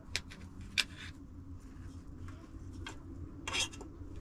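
A few sharp clicks and light knocks of small objects being handled, with a short scrape or rustle about three and a half seconds in.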